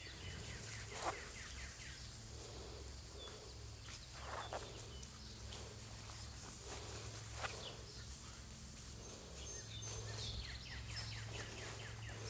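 Quiet outdoor background: a steady low hum and a high hiss, with a few faint short sounds about a second, four and a half and seven and a half seconds in.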